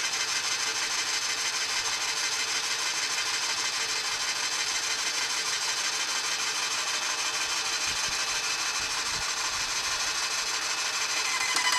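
Airless paint sprayer running while being primed with water, its pump drawing water up the suction hose and pushing it out of the drain hose into a bucket: a steady rasping hiss that gets louder and more rhythmic near the end.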